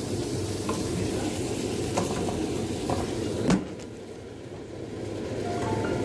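Mixed vegetables sizzling in a pot while a wooden spoon stirs them, with a few light knocks of the spoon. A sharp knock comes about three and a half seconds in, after which it is quieter, and a few musical notes begin near the end.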